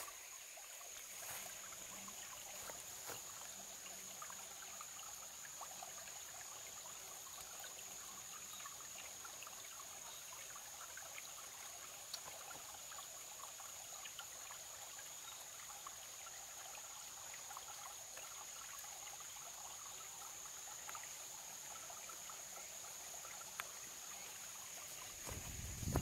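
Small trickle of water running steadily over rocks, with a faint steady high-pitched whine underneath and a couple of single clicks.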